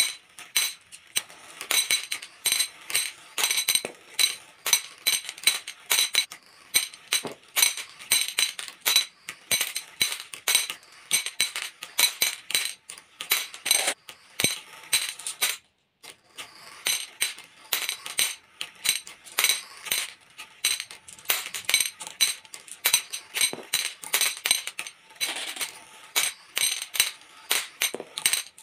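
Glass marbles dropping off the ends of channel tracks into glass bowls full of marbles: a rapid, continuous clinking and ringing of glass on glass, with a half-second break about halfway through.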